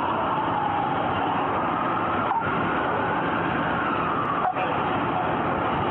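A police siren wailing, its pitch sliding slowly down, up and down again, over a steady noisy background. The sound cuts out for an instant twice.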